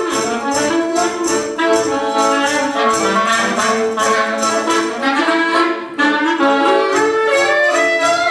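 Clarinet and piano accordion playing an instrumental duet, the clarinet carrying a moving melody over the accordion, with a brief break in the sound just before the sixth second.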